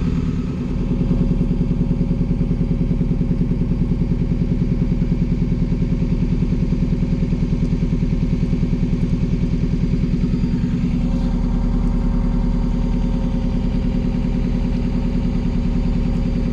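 Inboard diesel engine of a river hire cruiser running steadily at cruising speed, with an even, fast throbbing beat.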